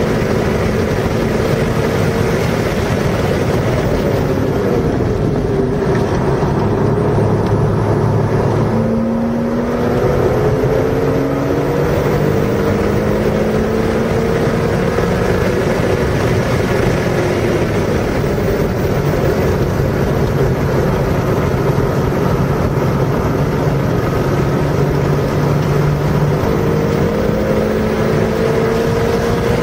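Car engine under hard acceleration, its pitch rising through each gear and dropping back at the shifts, over steady loud wind and road noise.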